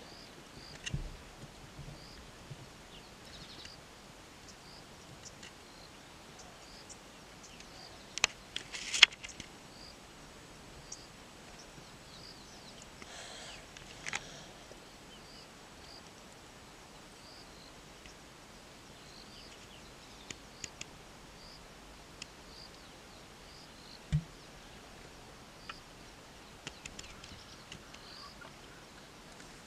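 Quiet bush ambience with a soft, high chirp from a bird or insect repeating steadily, a little more than once a second. A few sharp clicks stand out about a third of the way in, and there is a single low thump later on.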